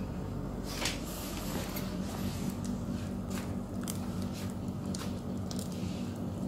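Thick, spiky durian husk cracking and splitting as a lever-mounted cutting blade is forced into it, giving a series of sharp cracks and crunches roughly a second apart over a low steady hum.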